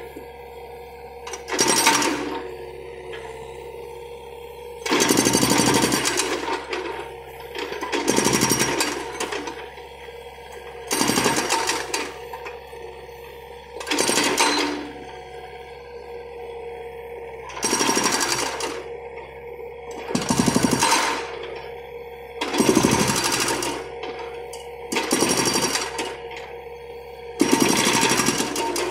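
Hydraulic breaker on a John Deere 50D compact excavator hammering concrete in about ten short bursts of rapid blows, each roughly a second long and a few seconds apart. The excavator's diesel engine and hydraulics run steadily in between.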